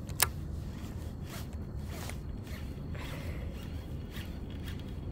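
Baitcasting reel being handled and reeled: one sharp click about a quarter second in, then faint, irregular ticks and rubbing over a low wind rumble.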